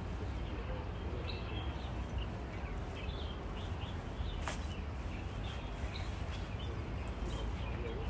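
Short bird chirps repeating on and off over a steady low rumble, with one sharp click about four and a half seconds in.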